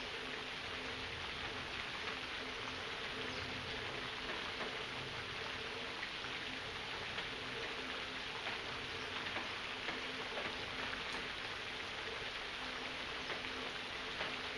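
Steady rain falling, an even hiss of drops with small patters, and a faint steady hum underneath.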